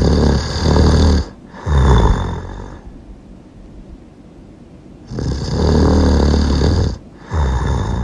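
Loud snoring in two cycles: each a long snore of about a second and a half, followed at once by a shorter one, with a pause of about two seconds before the pattern repeats.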